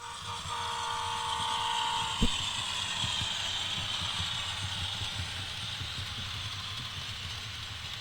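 Diesel locomotive running, with a steady two-note tone for the first two seconds, a sharp knock about two seconds in, then a steady low rumble with light clicking under a hiss that slowly fades.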